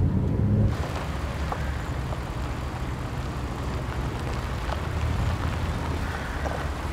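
Car engine running with road and traffic noise; the low engine hum gives way suddenly to a broader, hissy road-noise ambience about a second in.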